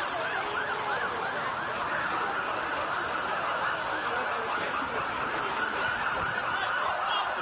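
Several emergency-vehicle sirens sounding at once, overlapping, with fast up-and-down yelping sweeps over a steady background rumble of noise.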